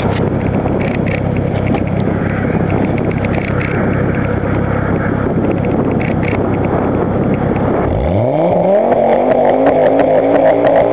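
Exhaust of a turbocharged Ford Focus ST, blasting into the microphone with scattered crackling pops. About eight seconds in, the engine is revved: its note climbs steeply and holds high and loud, with more pops over it.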